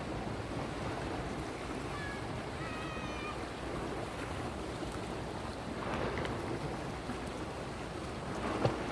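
Sea waves washing on a shore, swelling twice in the second half, with wind buffeting the microphone. A few faint, short high chirps come about two to three seconds in.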